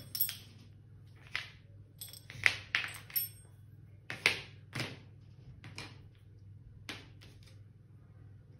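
Small faucet mounting parts (rubber gaskets, a plastic ring, a metal bracket and brass nuts) being handled and set down on cardboard one at a time: scattered light taps and clicks, the two loudest about two and a half and four seconds in.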